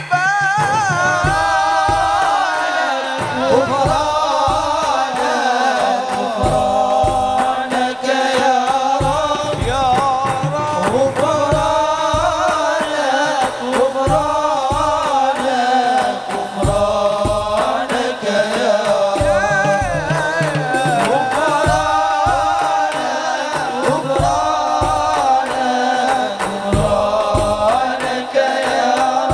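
Arabic sholawat (devotional praise song) sung by a man into a microphone in a long, wavering, ornamented melody, over drums beating a steady rhythm.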